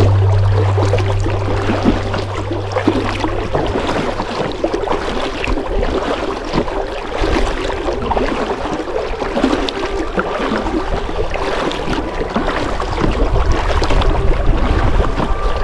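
Kayak paddle dipping and pulling through water, with splashing and dripping along the hull. A low hum fades out over the first few seconds.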